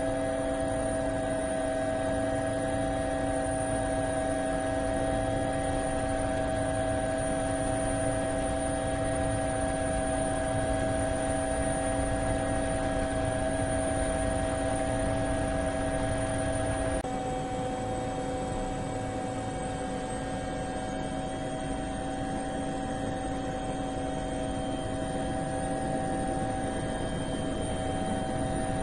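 DJI Phantom quadcopter's motors and propellers giving a steady whine of several tones at once. The pitch shifts suddenly a little past halfway through, and afterwards the highest tone rises slowly.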